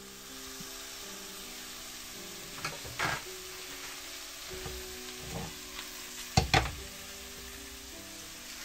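Miyazaki Wagyu chateaubriand steak sizzling steadily in a preheated red copper pan. A few sharp knocks break through, the loudest a quick pair about two-thirds of the way in.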